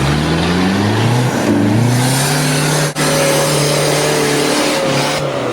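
Four-wheel-drive vehicle's engine revving: the pitch climbs twice in the first two seconds, then holds steady at high revs, as under load.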